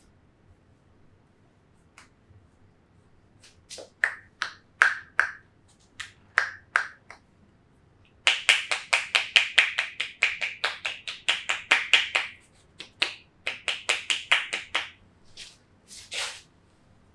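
Percussive massage strokes: hands slapping and clapping on the body with a hollow pop, a few single strikes and then two fast runs of about six strikes a second.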